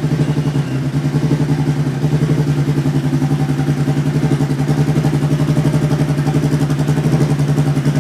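Turbocharged 2.0-litre four-cylinder engine of a Renault 21 Turbo 4x4 SuperTourisme race car idling steadily, with a lumpy, pulsing beat.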